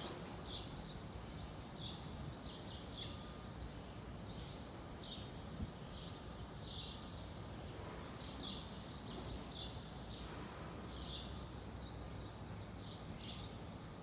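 Small birds chirping: short, high, falling chirps, one or two a second at irregular spacing, over faint low background noise.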